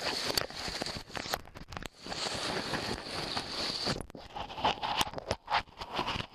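Clothing rubbing and crackling against the microphone of a camera carried in a pocket, in irregular scrapes and clicks, over a steady hiss of rushing whitewater.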